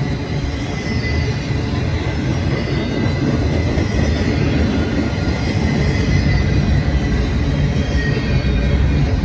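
Intermodal freight train passing close by: container cars rolling over the rails in a steady loud rumble, with a faint high ringing tone from the wheels over it.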